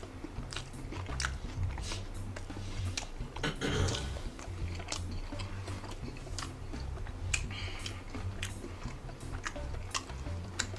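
A person biting and chewing a soft fish taco close to the microphone, with wet mouth clicks and smacks at irregular intervals. Quiet background music plays underneath.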